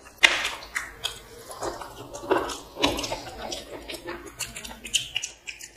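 Close-up eating sounds: chewing and mouth smacks of people eating mutton biryani by hand, with many small clicks.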